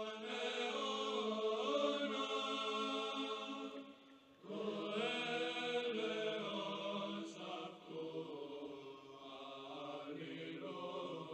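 Background choral chant: voices singing slow, held notes in long phrases, with a brief pause about four seconds in.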